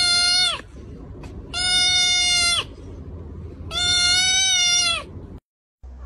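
A kitten crying out three times, each a long, high, even cry of about a second that drops slightly in pitch at its end.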